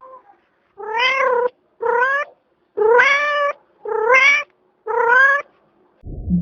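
A cat meowing five times, about once a second, each meow a short call that rises in pitch at its start.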